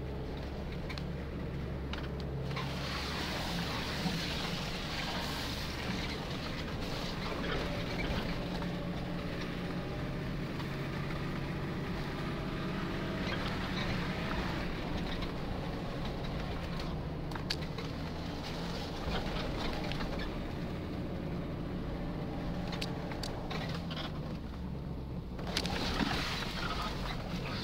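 Nissan Patrol 4x4 heard from inside the cab, its engine running steadily at low speed over rough ground. Scattered knocks and rattles come from the bumps, with a louder knock and rustle near the end.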